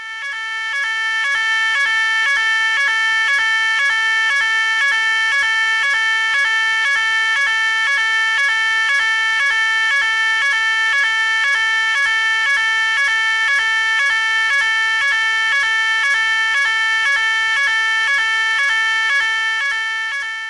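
Fire alarm sounding: a loud, steady two-tone warble that alternates between two pitches about twice a second. It starts at once and fades down near the end.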